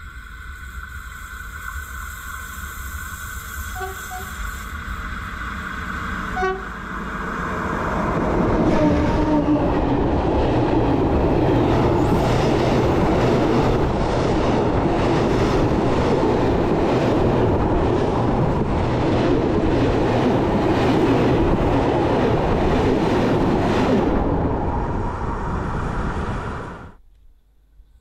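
Freight train hauled by a Croatian Railways 1141-series electric locomotive rolling directly over a camera set between the rails. The rumble builds over about eight seconds into a loud, steady rumble with the repeated clack of wagon wheelsets passing overhead, then cuts off suddenly near the end.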